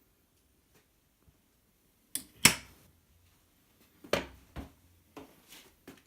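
A handful of separate sharp knocks and clatters with short ringing tails. The loudest comes about two and a half seconds in, and a cluster of lighter ones follows around four seconds.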